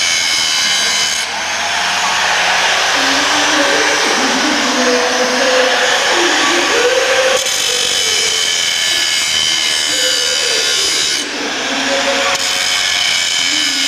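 Angle grinder cutting metal: a harsh grinding noise over a steady high whine, its sound changing abruptly a few times.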